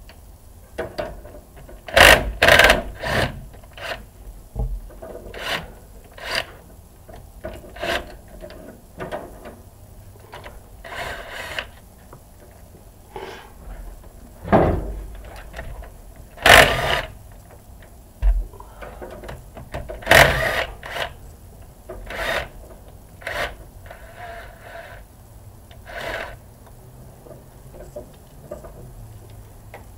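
Hand tools working on the bolts of a Kubota tractor's diesel intake manifold: irregular metallic clicks, knocks and scraping, with louder clanks about 2, 16 and 20 seconds in.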